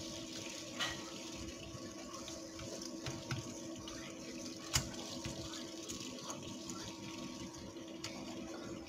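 Steak sauce bubbling and sizzling around a beef fillet steak in a nonstick frying pan, with chopsticks clicking against the pan now and then, the sharpest click about halfway through. A steady low hum runs underneath.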